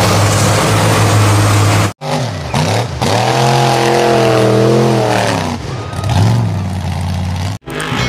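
Heavy off-road trucks' engines running hard at high load. After an abrupt cut about two seconds in, an engine revs up and down in long rising and falling sweeps, then the sound cuts off again near the end.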